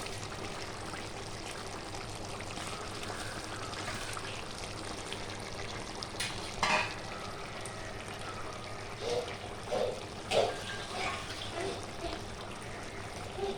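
Chicken curry cooking in a pot on the stove with a steady sizzle. In the second half a spoon clinks and scrapes against the pot several times as the curry is stirred.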